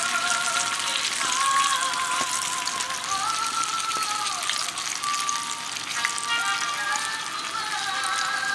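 Breaded crappie frying in hot oil in a skillet, the oil sizzling and crackling continuously. Background music with a melody plays over it.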